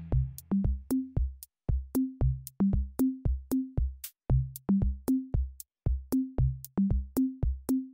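Background music: a drum-machine beat playing on its own, with kick-drum and pitched tom-like hits at about three a second.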